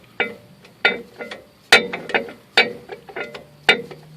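Hand ratchet wrench clicking in short strokes on a nut, with sharp metallic clicks about once a second and lighter clicks between them.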